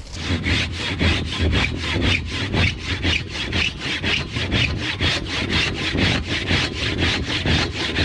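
Hand saw cutting through a log in quick, even back-and-forth strokes, about four a second.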